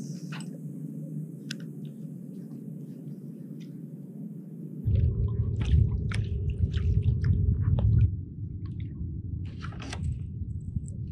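Water lapping against a kayak hull, with scattered light clicks and knocks as the fishing rod and paddle are handled. About five seconds in it turns louder, with a low rumble that lasts about three seconds before dropping back.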